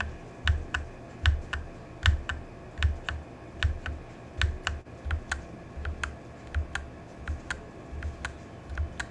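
Keys of a Royal Kludge RK100 mechanical keyboard with RK red linear switches pressed one at a time and bottomed out at a steady pace, about two to three strokes a second, each a sharp click with a low knock under it.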